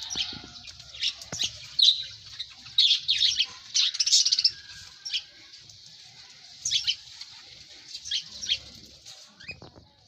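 Small birds chirping: short, sharp, quickly falling chirps in busy clusters, with faint low knocks underneath.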